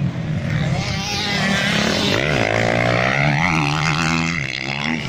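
Motocross bike engine revving hard as the bike races past on the dirt track. Its pitch climbs and falls with the throttle and gear changes, loudest in the middle, with a brief drop a little after four seconds in.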